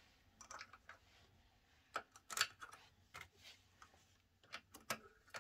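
Faint, scattered metallic clicks and scrapes of a hand tool working the two screws of the scooter's disc brake back in, with the sharpest clicks about two seconds in and near the end.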